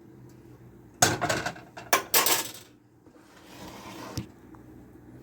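Pots and utensils clattering in a kitchen: sharp metal clanks about a second and two seconds in, then a soft even hiss.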